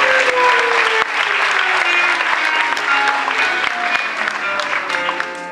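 Audience applauding over background music, the applause dying away near the end.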